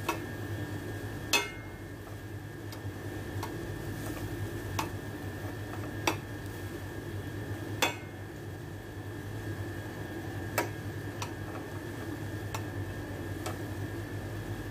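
Metal tongs clinking against a stainless steel frying pan as strips of chicken are turned, a sharp clink every few seconds with lighter ticks between, over a steady low hum.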